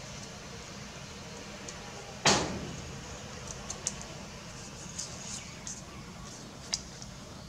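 Paper being handled and folded by hand on a tabletop, with small crinkles and clicks, and one louder knock on the table about two seconds in, over a steady low hum.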